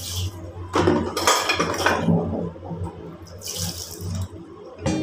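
Water poured from a plastic dipper splashing over a wooden cutting board in a sink, in two pours: one about a second in, the other near the end.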